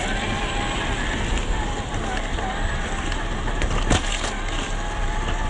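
Stock 540 brushed electric motor and gears of a CrossRC XT4 RC crawler truck whining under throttle as its tyres roll over leaf litter and twigs. A sharp knock comes about four seconds in.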